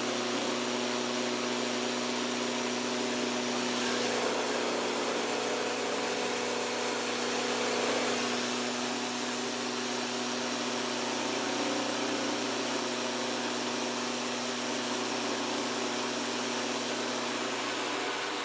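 Small household rice mill running steadily: an even motor hum over a broad hiss.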